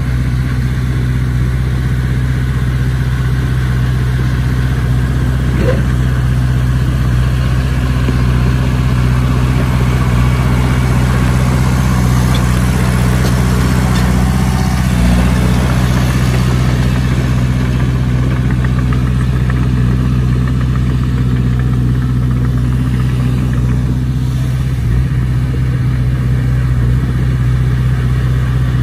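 Diesel engine of heavy earthmoving machinery running steadily at a constant speed, a low even drone, with a couple of brief knocks midway and near the end.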